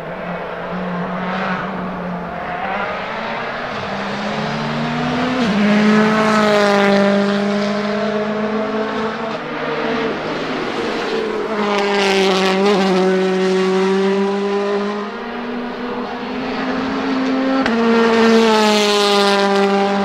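World Rally Car engines, including a Ford Fiesta WRC and a Hyundai i20 WRC, running at speed on a circuit. The engine note rises and falls in pitch with throttle and gear changes, and grows loudest three times as cars come close.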